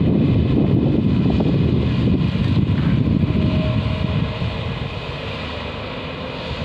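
Diesel engines of two Tata Hitachi excavators and a Volvo 460 mining tipper running under load while coal is dug and loaded, a steady low drone that eases off a little about two-thirds of the way through.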